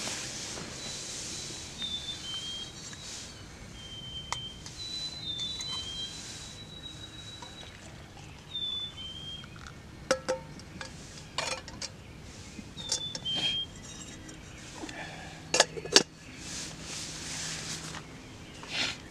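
Small birds singing short whistled phrases, over the rustle of a sleeping bag and tent fabric, with clinks of a metal camp pot and mug as water is poured from the pot into the mug. Two sharp metal clanks near the end are the loudest sounds.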